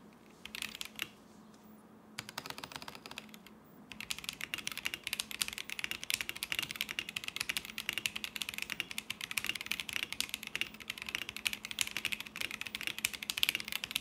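Typing on a modded RK G68 65% mechanical keyboard fitted with Boba U4T tactile switches, OEM-profile keycaps and neoprene dampening. Two short bursts of keystrokes come in the first few seconds, then fast continuous typing from about four seconds in.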